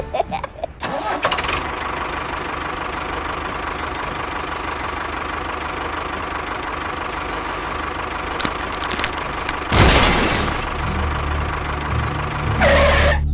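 A model tractor's motor running steadily, starting about a second in. A sudden loud burst comes about ten seconds in, and a shorter one near the end.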